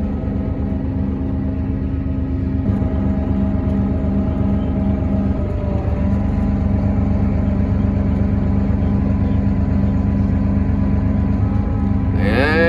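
Vehicle engine and road noise heard from inside the cab, running at a steady speed with an even drone.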